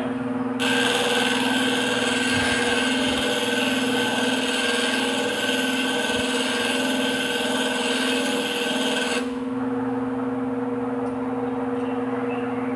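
Electric grinding wheel running with a steady hum, as a blade's flat face is held against the freshly dressed wheel and ground with a loud rasping hiss. The grinding stops at about 9 seconds in, leaving the motor humming.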